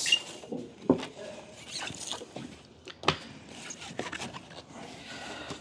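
Handling noise: rustling and a few light knocks, about one a second, as marker sheets are laid out on a boat's floor.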